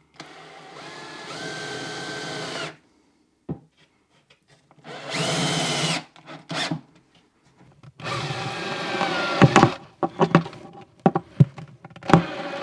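Cordless drill-driver driving a 40 mm wood screw into timber in several short runs, its motor whining and stepping up in pitch about a second in, with a few sharp clicks near the end.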